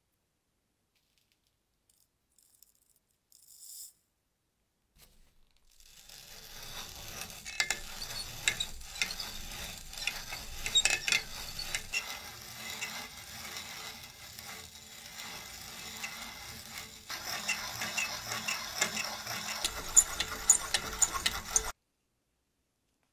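Old sugar grinder's mechanism turning, with continuous gear rattling and many sharp clicks. It starts about six seconds in, grows louder about seventeen seconds in, and cuts off suddenly near the end.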